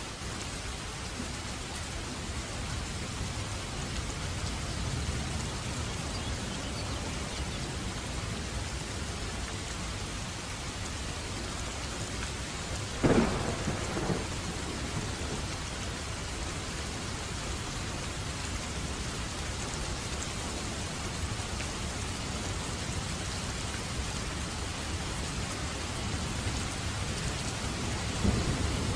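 Heavy rain falling steadily in a thunderstorm. A sharp thunderclap cracks about halfway through, followed by a short rumble, and a low thunder rumble builds near the end.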